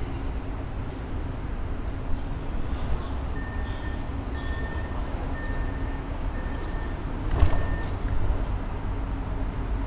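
Electric tram standing at a stop with its equipment humming steadily. From about three seconds in, a high electronic beep sounds five times, about one a second, and a thump comes near the last beep.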